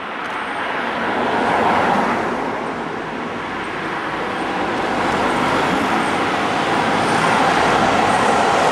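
Two DB class 218 diesel locomotives hauling a passenger train approach, their engines' drone growing steadily louder, with a brief swell about two seconds in.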